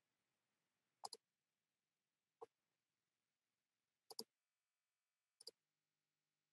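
Faint computer mouse clicks, four short clicks or double clicks a second or more apart, over near silence.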